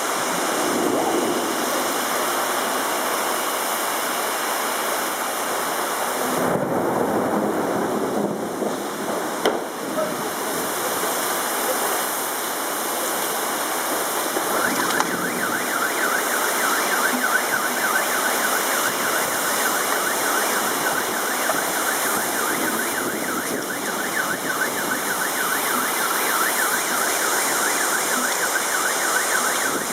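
Heavy rain and wind, a steady loud hiss. About halfway through, a car alarm starts up, a fast repeating high warble that keeps going over the rain.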